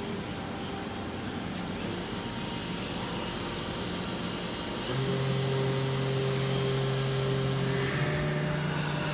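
Steady mechanical hum of a powered-up Kira CNC tap and drill center. A steady pitched hum joins about five seconds in and shifts slightly in pitch about three seconds later.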